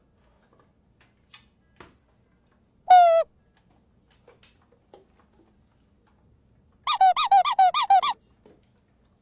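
Squeaky dog toy being squeezed: one squeak about three seconds in, then a quick run of about ten squeaks near the end.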